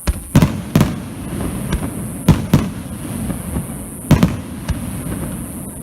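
Fireworks display going off: a string of sharp bangs, several close together, with a rumbling, crackling wash between them.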